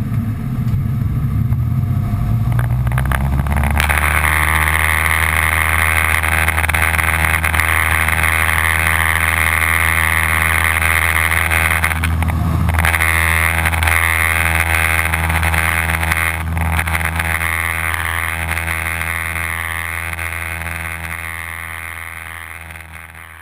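Cessna 172's piston engine heard from inside the cockpit during a touch-and-go. It runs at low power on the landing roll, is opened up to full power about four seconds in, and holds a loud, steady note through the takeoff roll and climb-out, fading away near the end.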